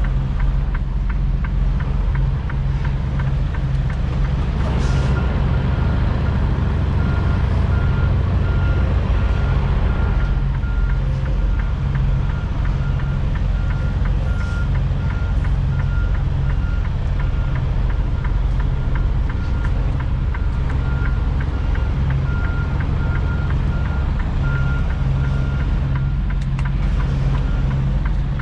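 Semi truck's diesel engine running, heard from inside the cab while the truck manoeuvres, with a reversing alarm beeping steadily from about five seconds in until near the end.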